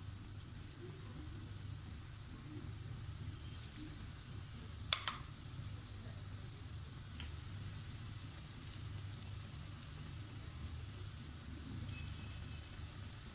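Potato and onion pakoras in gram-flour batter deep-frying in hot oil in a wok, a steady sizzle as more battered pieces are dropped in. A single sharp click about five seconds in.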